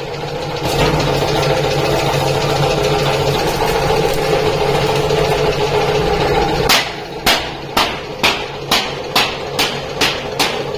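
A steady machine sound with an engine-like pitched running hum, louder for several seconds. About two-thirds of the way in, hammer blows on metal begin, about two a second, over the continuing machine sound.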